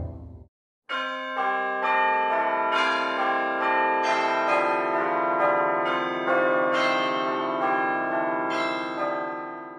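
Bell-like chimes, a run of struck pitched tones that ring on and overlap one another, starting about a second in.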